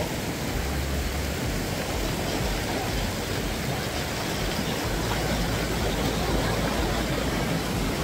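Fast-flowing river water rushing over rocks at a stream crossing: a steady, even rushing hiss with a low rumble underneath.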